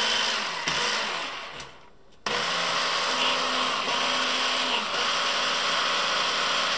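Moulinex Quickchef hand blender driving its chopper attachment at full speed, chopping garlic and parsley finer. It winds down and stops about a second and a half in, then starts again just after two seconds in and runs steadily.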